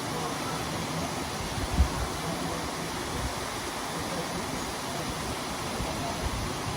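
Steady rushing of a waterfall, with a brief low thump about two seconds in.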